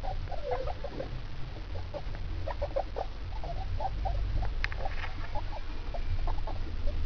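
Guinea pigs making many short, quick calls in an uneven string, the soft chatter of a mother with her young babies.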